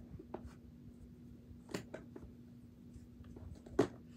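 A few light knocks and clicks of small toys being handled and set down in a drawer, the sharpest one near the end, over a faint steady hum.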